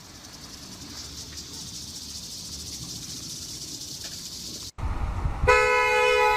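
A steady outdoor hiss, then a brief break, then a loud air horn blast about five and a half seconds in, held as one steady blaring tone.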